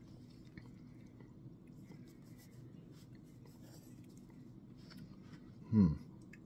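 Faint crackling and small ticks from freshly poured sparkling water fizzing in a mug. Near the end comes one short, low throat sound that falls in pitch.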